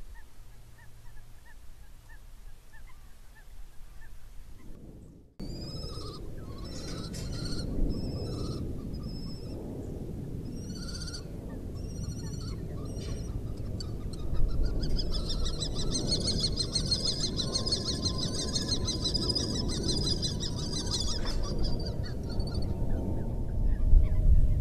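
Wind rumbling on an outdoor microphone with wild birds calling, the sound jumping abruptly louder about five seconds in. From about midway comes a long run of rapid, high, chattering bird calls.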